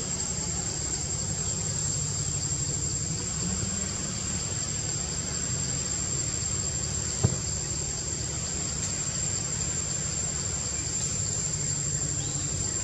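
Steady outdoor ambience: a continuous high-pitched insect drone over a low rumble, with a single sharp click about seven seconds in.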